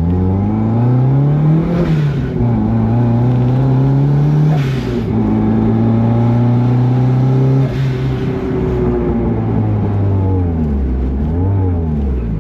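Turbocharged 1.6-litre Mazda Miata four-cylinder pulling through the gears: engine pitch climbs, drops at each shift with a short hiss, then holds steady and falls away near the end. The turbo is overboosting to about 16 psi, which the owner puts down to a wastegate actuator rod that isn't opening fully.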